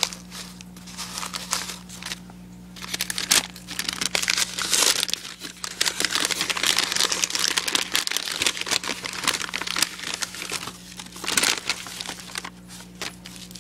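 Shredded-paper box filler and tissue paper rustling and crinkling as hands dig through them, in uneven surges with short lulls.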